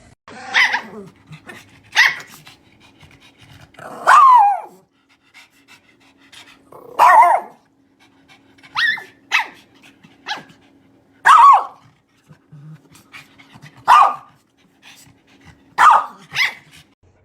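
A dog vocalizing at a person in a run of about eleven calls a second or two apart: short sharp barks mixed with longer, bending, yowl-like 'talking' calls that rise and fall in pitch.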